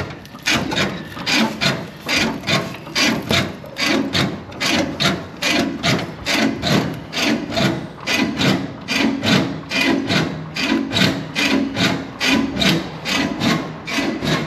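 Truck foot pedal being pumped fast and steadily, its worn linkage creaking and rasping on every stroke, a little under twice a second, while the old brake system is bled.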